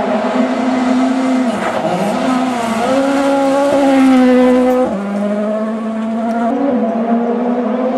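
Ford Fiesta RS WRC rally car's turbocharged four-cylinder engine at high revs, passing on a gravel stage. The note dips briefly, then climbs to its loudest about four seconds in, and drops sharply in pitch as the car goes by and away.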